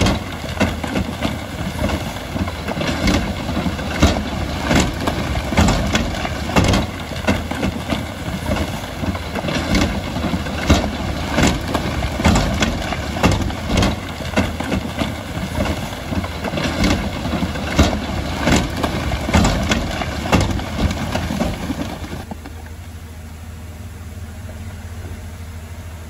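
Bulldozer's diesel engine running under load, with a busy clatter of irregular clanks and knocks; about 22 seconds in the knocking stops and a steadier, quieter engine hum is left.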